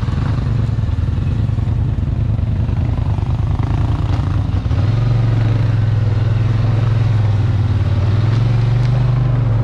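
Off-road vehicle's engine running at low speed, then picking up revs about five seconds in and holding at the higher speed.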